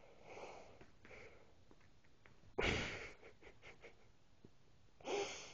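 A person breathing and sighing softly, with a sudden louder breath about two and a half seconds in that fades away, and another near the end.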